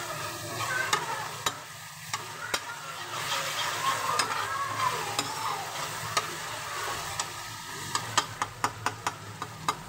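Onion-tomato masala sizzling in oil in a black kadhai. A metal spatula stirs and scrapes it, knocking against the pan with sharp clicks that come thick and fast near the end. The masala is being fried down (bhuna) until the oil separates.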